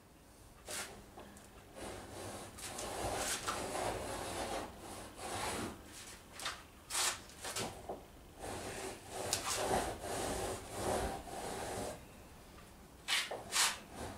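A scratch stock scraping a channel along the boat's wooden gunwale, pushed back and forth in irregular strokes that cut and lift shavings, with a few short, sharp strokes near the end.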